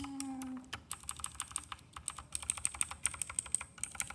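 Fast typing on a Redragon Kumara mechanical keyboard: quick runs of crisp key clicks, with a brief pause about two seconds in. A short low tone sounds right at the start.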